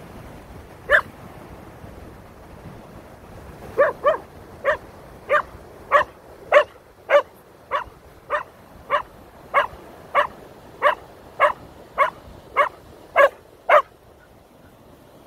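A dog barking: one bark, then after a pause a steady, evenly spaced run of about eighteen sharp barks, a little under two a second, stopping shortly before the end.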